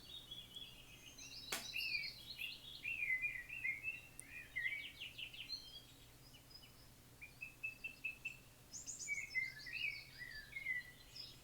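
Small songbirds chirping and singing in quick high phrases, faint under a low steady hum, with one sharp click about one and a half seconds in.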